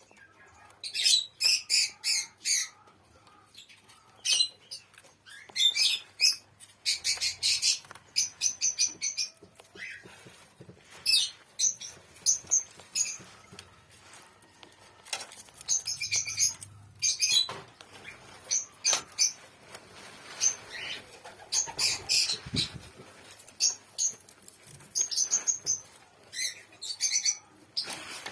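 Birds giving rapid high-pitched chirps in repeated bursts of a second or two, with short pauses between.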